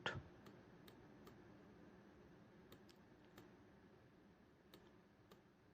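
Near silence with a faint room hiss and a few scattered, faint clicks.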